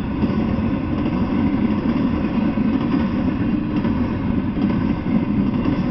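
Intermodal freight train rolling past, a steady noise of its wheels on the rails.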